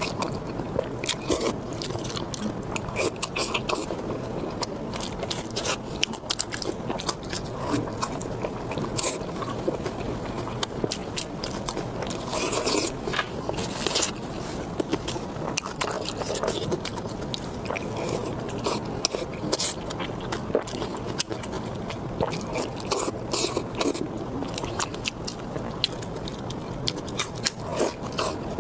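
Close-miked eating sounds: a person chewing and biting food, with frequent wet clicks and smacks and some scraping, going on steadily throughout.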